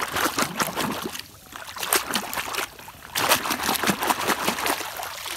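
Water splashing and sloshing as a hand swishes and scrubs a muddy plastic toy motorcycle in a pond to wash the mud off. The splashing comes in bouts with short pauses.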